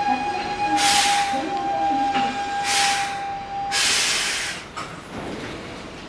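A Hankyu electric train at the platform lets out three sharp hisses of compressed air within about four seconds. A steady high tone underneath cuts off just before the third hiss.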